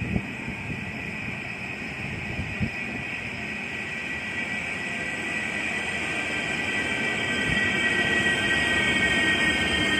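A train approaching, growing steadily louder, with a high steady whine over its running noise. There are two short sharp clicks, one right at the start and one at about two and a half seconds.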